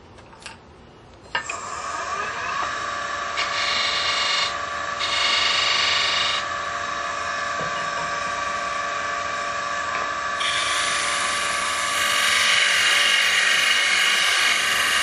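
Wood lathe starting up just over a second in and running with a steady whine. A parting tool cuts a shallow groove into the spinning wooden tenon three times, the hiss of the cut coming and going, with the longest cut near the end.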